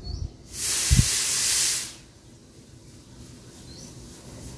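Plastic booster jar being set down and twisted onto a mixer grinder's base: a hiss of about a second and a half with a low thump in the middle, then quiet.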